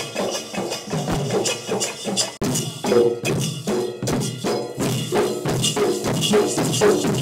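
Folk drum troupe playing large barrel drums (dollu) and hand cymbals, a fast, dense beat with pitched tones woven through. The beat drops out for a moment about two and a half seconds in.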